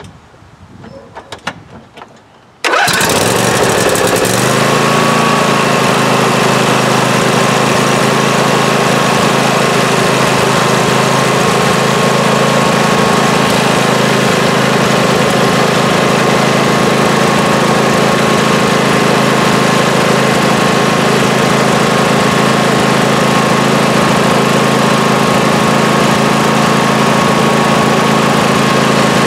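Briggs & Stratton 26 HP twin-cylinder lawn tractor engine starting abruptly about three seconds in, after a few faint clicks, then running steadily at full throttle.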